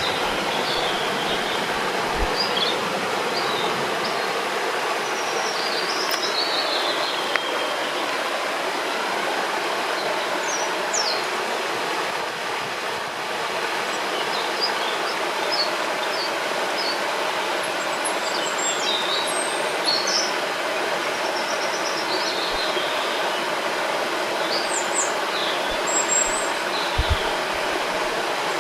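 Steady rush of a flowing river, with birds chirping in short, scattered calls above the water.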